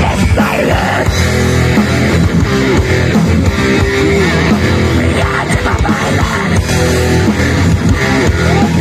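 Metal band playing live: loud distorted electric guitars and bass over dense, fast drumming.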